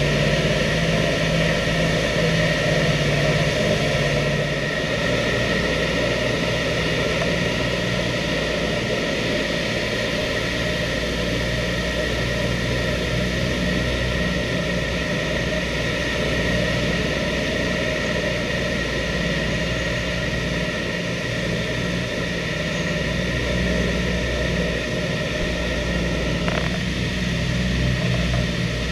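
Twin Wright R-2600 radial engines and propellers of a B-25 Mitchell bomber running steadily, heard from inside the fuselage as a continuous drone.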